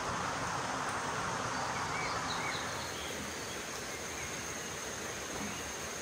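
Stream water rushing over rocks, with a thin steady high insect drone and a few short bird chirps. After about two and a half seconds the water sound drops away, leaving the insect drone and forest ambience.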